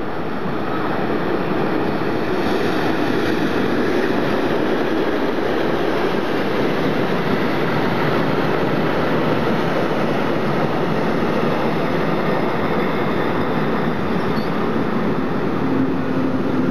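SBB double-deck passenger train rolling past alongside the platform: a steady rumble and rattle of steel wheels on rail. A steady electric hum joins in near the end as the locomotive goes by.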